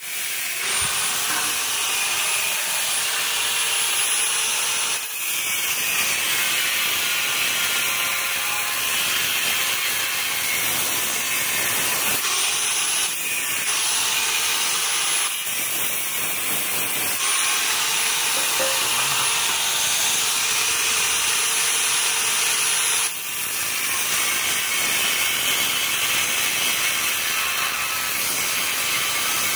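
Handheld angle grinder with a cutting disc running and cutting through steel square tubing: a continuous grinding hiss with a steady whine, dipping briefly about five seconds in and again a little after twenty-three seconds.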